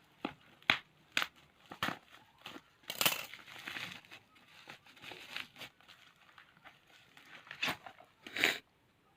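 Plastic packaging crinkling and rustling as it is handled and opened: a string of sharp crackles, a longer rustle about three seconds in, and a loud crinkle near the end.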